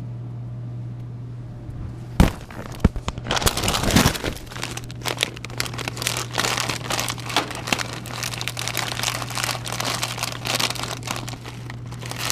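Dense crinkling and rustling, like a plastic bag being handled, starting about two seconds in and going on irregularly, over a steady low hum.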